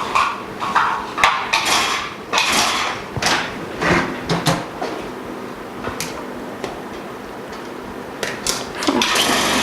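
Clicks, knocks and scrapes of hose fittings and machine parts being handled, then a small vacuum pump starts and runs steadily near the end.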